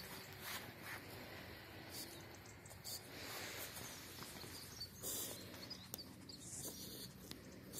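French bulldog nosing in dry brush: faint rustling of twigs and leaves with a few short, breathy sniffing bursts, the clearest about 3, 5 and 7 seconds in.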